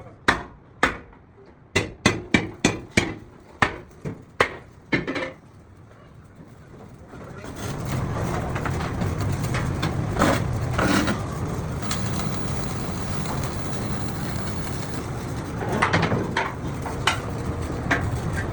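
About a dozen sharp hammer blows on metal, two or three a second, stopping about five seconds in. From about seven seconds in, a steady noisy workshop machine sound takes over.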